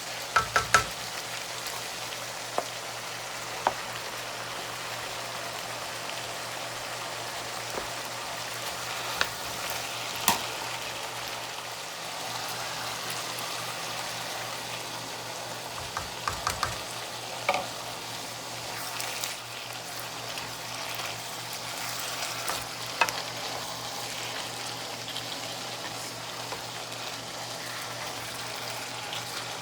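Food sizzling in a frying pan, with a utensil clicking and knocking against the pan in short clusters every several seconds as the food is stirred.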